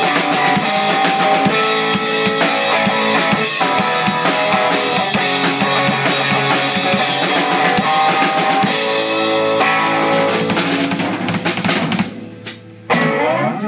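Electric guitar and drum kit playing a loud rock jam together. About twelve seconds in, the playing breaks off, leaving a couple of last hits and a short rising note.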